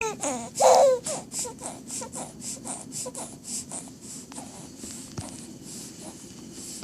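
A three-month-old baby's short voiced sound and a sudden loud burst about half a second in, then a quick run of short hissing breaths, about three or four a second, fading after a few seconds: the hitching breaths of a sneeze that is building but doesn't come.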